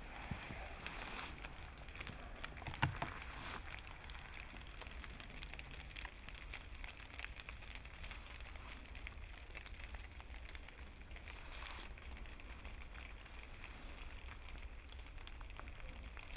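A crowd standing silent outdoors: faint ambience with a low steady rumble and scattered small clicks and rustles, and one brief louder noise about three seconds in.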